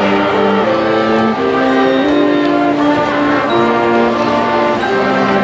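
High school marching band playing its field show, the brass section sounding slow held chords that shift every second or so.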